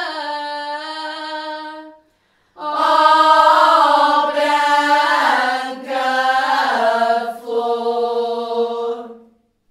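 Women's choir singing cante alentejano unaccompanied, several voices in close harmony. A held note ends about two seconds in, then after a brief gap the group sings another phrase that ends on a long held note fading out near the end.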